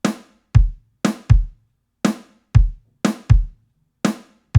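Sampled acoustic drum kit looping a simple kick-and-snare groove. A ringing snare hits about once a second, with short, deep kick drum hits falling between the snare hits.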